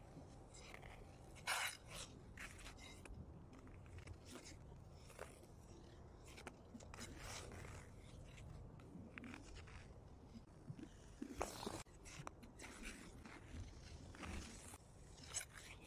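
Figure skate blades scraping and carving on sea ice in short strokes at uneven intervals, over a faint low rumble.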